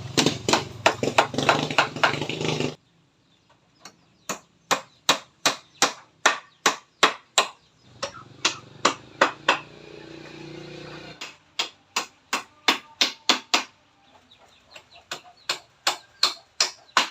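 A hammer striking wood in runs of steady blows, about two or three a second, with short pauses between the runs. During the first few seconds an engine hums in the background.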